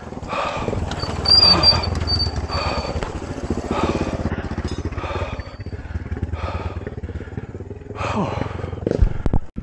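A small motorcycle carrying two riders passes close on a dirt road, its engine running at low revs, louder in the first half. Over it come heavy panting breaths of a cyclist climbing uphill, about one a second. A couple of sharp knocks come near the end.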